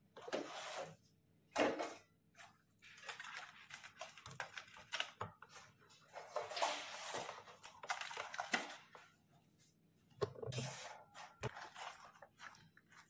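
A plate set down on a countertop with a light tap, then deep-fried bhature handled and laid on it: irregular soft rustling and a few sharp little taps.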